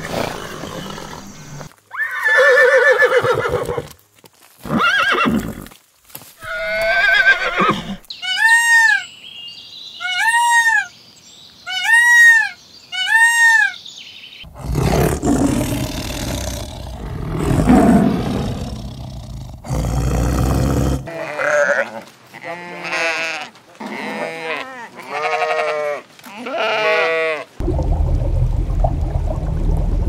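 A string of different farm-animal calls edited back to back, each clip cutting abruptly to the next. Partway through, one call repeats four times, each rising and then falling in pitch.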